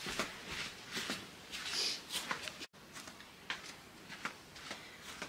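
Footsteps and shuffling on a hard floor with a few light knocks, irregular and soft. The sound cuts off abruptly about two and a half seconds in, and quieter scattered steps follow.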